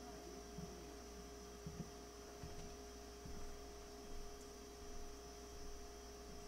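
Steady faint electrical hum made of a few fixed tones, with a few soft taps and handling knocks from work on the radio chassis.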